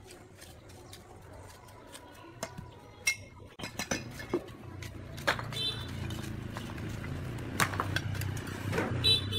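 A steel bricklaying trowel clinking and scraping on clay bricks and mortar as bricks are set: a string of short, sharp taps and clinks. A low hum comes up from a few seconds in.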